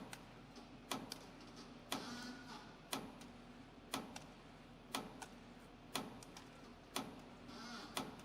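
YHM CF-310 CNC compression spring coiling machine running on 0.6 mm galvanized wire, with a sharp click about once a second as each spring is cut off, lighter ticks and a low hum between, and a brief whir twice.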